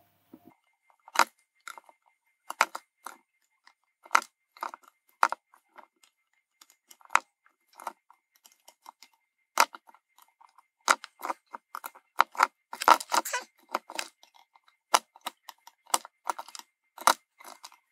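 Irregular sharp clicks and taps of metal tweezers and a soldering iron tip against a circuit board, as the pieces of a cracked, cut-up female pin header are pulled out of their solder holes. The clicks come more thickly about two-thirds of the way in.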